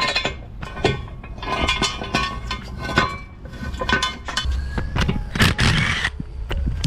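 Metal tools and parts clinking, knocking and scraping against each other, several knocks leaving short ringing notes.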